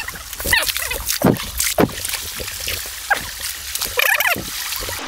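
Leaves, ferns and twigs rustling and snapping irregularly as someone pushes on foot through dense undergrowth, with a short voice-like sound about four seconds in.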